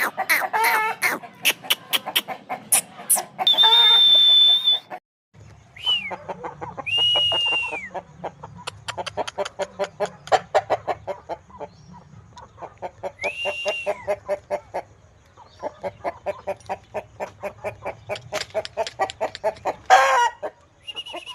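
Chickens clucking rapidly and continuously, with a few high, drawn-out calls over the top. The sound drops out briefly about five seconds in and resumes.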